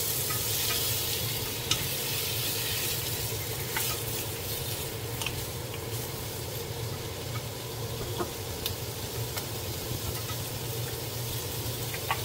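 Sliced zucchini and onion sizzling in a hot nonstick frying pan as they are stir-fried, with a wooden spoon now and then tapping and scraping the pan.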